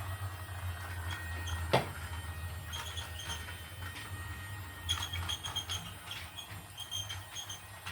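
Toy steam train set running: a steady low hum with many quick, high squeaky chirps and clicks, and a short falling sweep about two seconds in.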